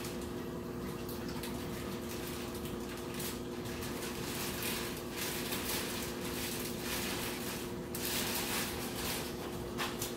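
Water boiling in a stainless steel pot to steam king crab legs: a steady bubbling noise that swells and fades, over a steady low hum.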